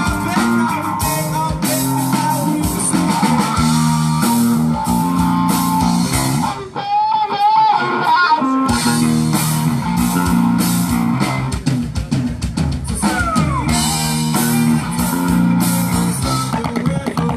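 Live rock band playing a song on electric guitar, bass guitar and drum kit. About seven seconds in, the bass and drums drop out for roughly two seconds while a single wavering note carries on, then the full band comes back in.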